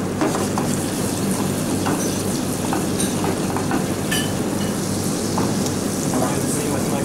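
Butter and oil sizzling in a small stainless steel saucepan on a solid-top range, with a few light clinks of metal pans over a steady low hum.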